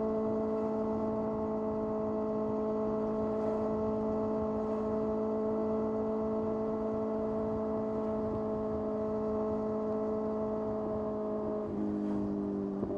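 Kawasaki ZX-6R inline-four engine running at a steady speed, its note sinking slowly, then dropping abruptly near the end.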